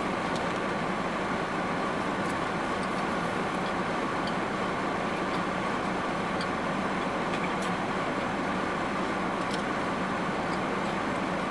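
Steady air-conditioning hum with a couple of faint steady tones and a few faint scattered ticks.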